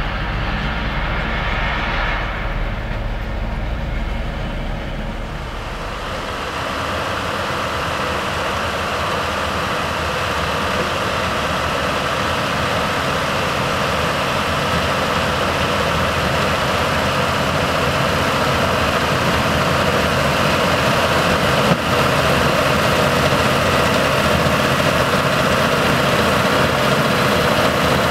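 A low rumble inside a pickup cab for the first few seconds. It then gives way to a Case IH tractor's engine and the spinning flails of the sugar beet defoliator it pulls, a steady mechanical din that grows louder as the machine comes closer.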